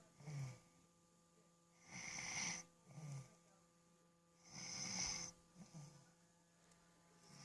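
A sleeping person snoring in a steady rhythm, about one breath every two and a half seconds. Each breath is a hissy drawn-in snore followed by a short, low out-breath that falls in pitch.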